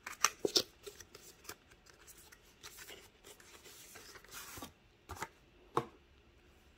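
A cardboard pen box being pulled open by hand: scattered taps, clicks and rustles of the packaging, with a short sliding scrape a little past halfway as the presentation case comes out of its sleeve, and two sharper clicks near the end as the case is handled.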